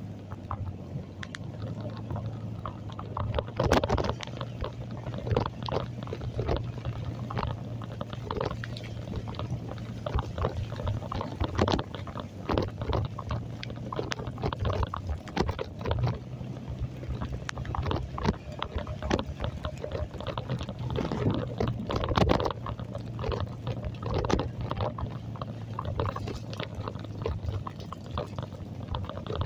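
Heavy rain spattering and splashing in irregular crackles, over a steady low engine hum.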